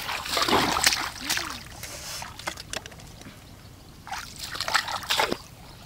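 Water sloshing and splashing, with some trickling. The splashing is busiest in the first second and a half, then thins to a few scattered splashes.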